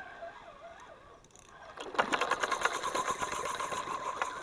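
Fishing reel clicking in a fast ratcheting run with a steady whine, starting about two seconds in and lasting about two and a half seconds, with a hooked fish on the line.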